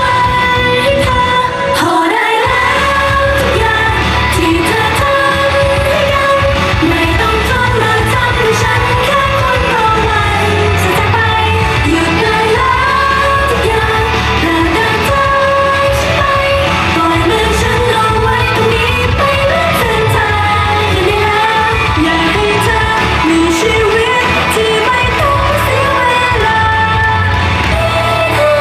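Female idol-pop group singing live into handheld microphones over loud pop music.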